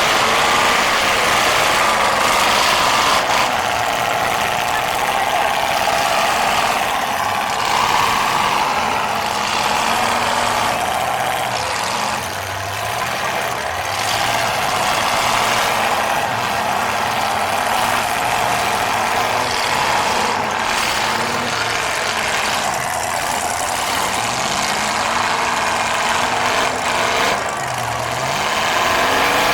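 Demolition derby cars' engines running and revving, with wavering engine pitches over a loud, steady mechanical din.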